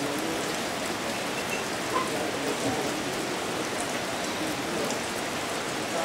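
Tropical rain falling steadily on rainforest foliage: an even hiss with a few scattered drop taps.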